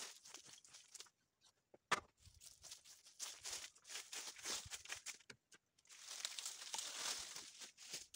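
Broom sweeping dry straw and dirt: a run of faint, short scratchy strokes, with a sharp knock about two seconds in.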